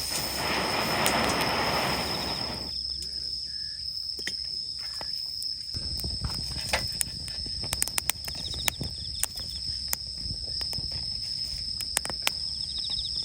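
Insects singing in one steady high drone, with scattered sharp crackles and snaps of a wood campfire. A soft rushing noise fills the first few seconds, then drops away.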